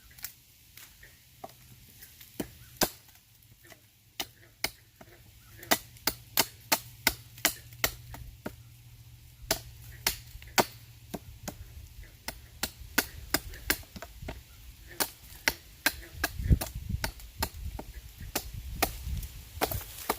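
A blade chopping and hewing into a piece of wood: a long series of sharp, irregular strikes, a few at a time, as the wood is cut down into a spatula.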